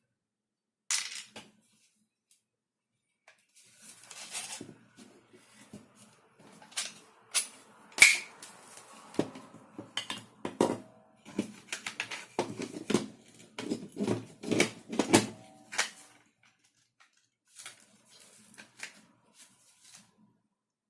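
Plastic parts being handled and fitted together: irregular clicks and knocks, thickest in the middle and thinning to a few faint ones near the end.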